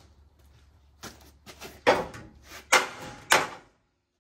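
Steel transmission crossmember of a Chevy C1500 pickup clunking against the frame as it is worked into place, with a few light knocks and then three loud metal knocks. It is catching on the transmission mount and will not clear.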